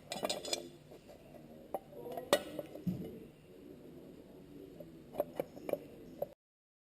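Metal tools and parts clinking and knocking as an 8mm socket is used on the bolts of a Honda CRF70's engine side case cover: scattered short clicks with a small cluster near the end. The sound cuts off abruptly about six seconds in.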